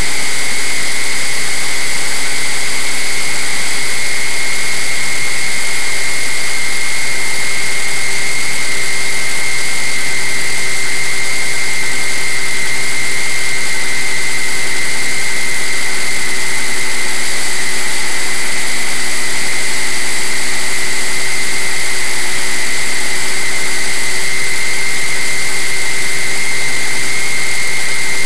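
Radio-controlled model airplane's motor and propeller running steadily in flight, heard from an onboard camera with wind rushing over the airframe. A constant high whine holds level throughout, over a steady rushing noise.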